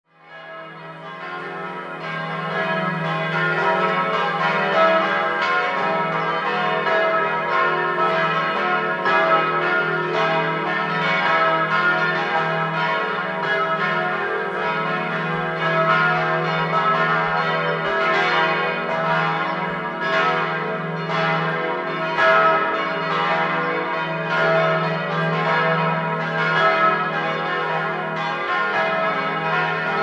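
Several church bells in a tower ringing together, their strokes overlapping in a continuous peal of many tones. The ringing fades in over the first couple of seconds.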